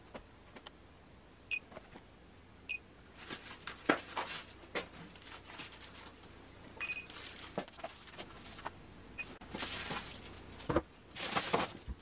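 Handheld infrared thermometer giving a short high beep each time a reading is taken, four times spaced one to four seconds apart. Between the beeps the foil bubble-wrap water-heater jacket crinkles as it is pulled back to reach the tank.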